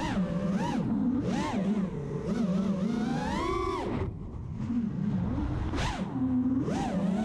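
Brushless motors and propellers of a 220 mm FPV racing quadcopter with DYS Fire 2600kv motors, whining in flight, the pitch sliding up and down with the throttle. About four seconds in the whine drops away briefly, then surges back.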